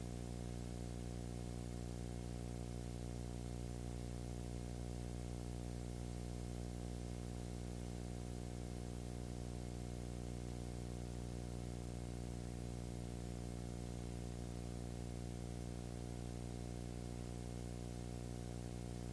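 Steady low electrical hum with a stack of even overtones and a faint hiss, unchanging throughout: background noise on the soundtrack of a silent home-movie film transfer, with no sound from the scene itself.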